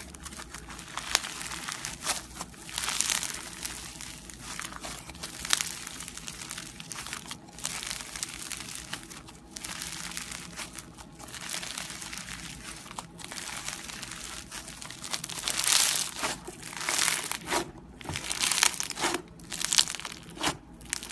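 Slime being squished and worked by hand, giving irregular crinkly, crackling squelches that come thicker and louder in the last few seconds.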